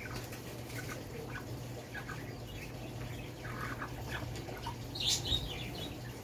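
Chewing a mouthful of soft durian flesh: small wet mouth clicks and lip smacks, a little louder about five seconds in, over a steady low hum.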